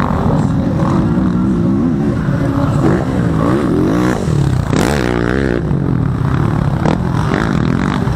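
Motocross dirt bike engines revving hard, the pitch rising and falling as riders work the throttle. One bike passes close about four seconds in.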